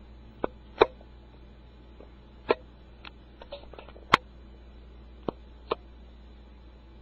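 Siamese cats scuffling: scattered short thumps and taps, about eight in all, the loudest about a second in and just after four seconds.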